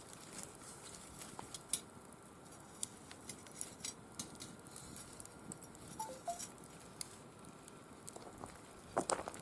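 Firewood burning in a mesh fire stand, crackling with scattered irregular sharp pops, and a quick burst of louder pops near the end.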